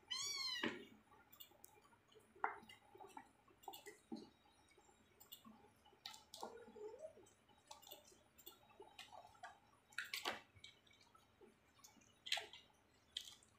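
A kitten's single high mew, rising then falling, under a second long at the start. After it come faint, scattered clicks and small scuffling sounds as kittens scramble and suckle at their mother on a plastic tray.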